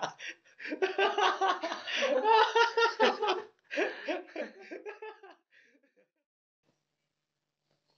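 Several young men laughing at a teasing jibe, the laughter dying away about five seconds in.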